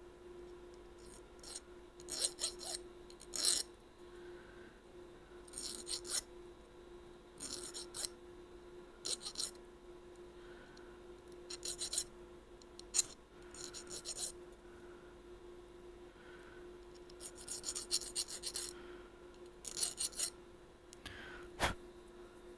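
Small hand file rasping on a small clarinet thumb-rest part held in the fingers, taking a small piece off. It comes in short clusters of quick strokes every second or two, over a steady low hum, with one sharp tap near the end.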